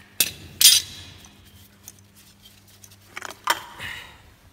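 Sharp metallic clinks and knocks from the Kia Soul 1.6 CRDi's diesel fuel filter canister and its metal housing being handled and pulled apart. There is one cluster in the first second and another about three and a half seconds in.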